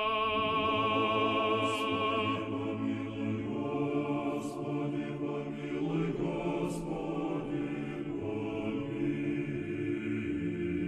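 Voices singing an unaccompanied Orthodox memorial chant, the sung response within a litany for the departed. A voice with a strong vibrato leads for the first couple of seconds, then several voices hold long, steady notes together.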